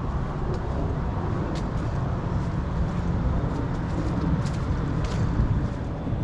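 Steady low rumble of distant interstate highway traffic, with scattered light crunches of footsteps on the trail.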